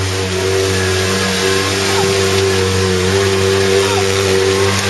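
Polaris RZR side-by-side's engine held at steady high revs under full throttle as it climbs a muddy slope with its wheels spinning, over a rush of noise from the tyres and flung mud. The revs begin to drop at the very end.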